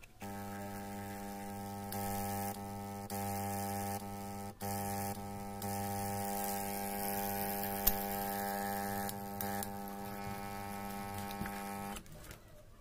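Small electromagnetic aquarium air pump running, a steady electric buzzing hum that switches on just after the start and cuts off near the end. Its loudness steps up and down several times as it is handled, with one sharp click about eight seconds in.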